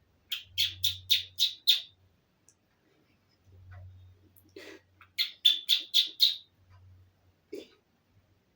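A person making chirping, bird-like noises with the mouth: two quick runs of about six short, sharp chirps each, one near the start and one a little past the middle.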